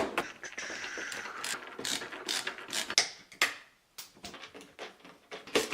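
Metal and plastic clicking and rattling of a screwdriver at work on a refrigerator door handle's fittings. A sharp knock comes first, then a busy run of small clicks and rasping, then a few separate clicks near the end.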